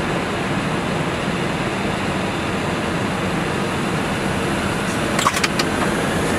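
Airbus A320 cockpit noise: a steady hum of the idling jet engines and ventilation, with a few sharp clicks about five seconds in. Near the end a faint rising whine begins as the engines start to spool up for takeoff.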